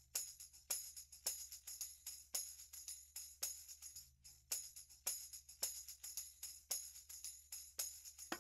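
Background music carried by quick, jingling percussion strokes, several a second in a steady rhythm, over a faint low hum.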